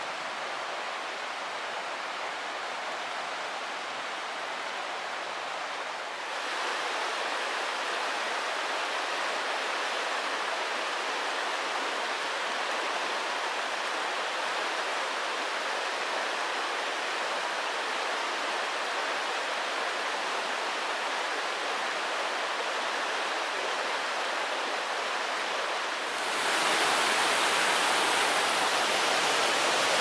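The Black River rushing over rocks in rapids: a steady noise of flowing water. It steps louder about six seconds in and louder again near the end, where it is white water tumbling between boulders.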